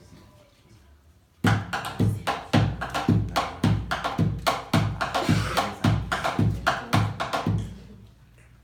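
Percussion music: drums struck in a steady rhythm, about three beats a second, each with a deep thump. It comes in about a second and a half in and dies away near the end.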